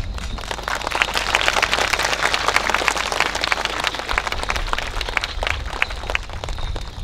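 Audience applauding: a dense, irregular patter of many hands clapping.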